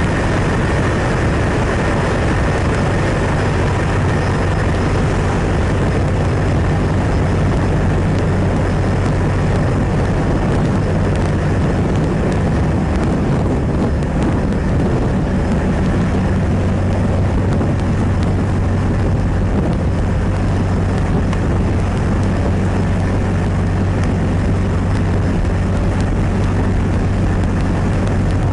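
Steady, loud drone of a ship's engine: a constant low hum under a dense wash of machinery noise, unchanging throughout.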